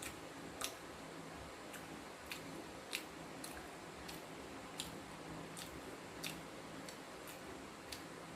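Chewing crispy, panko-breaded fried basa fish, with sharp crunches a little under two a second.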